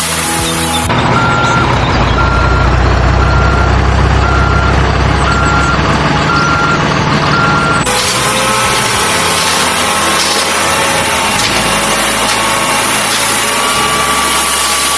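Truck reversing beeps, about one a second for some seven seconds, over a low engine rumble, then the whirring of small electric motors with a few steady whining tones.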